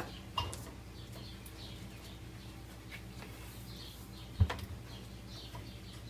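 Hands working a Bosch dishwasher's plastic upper spray arm beneath the wire rack: a few faint clicks and one sharp knock about four seconds in, over a low steady hum.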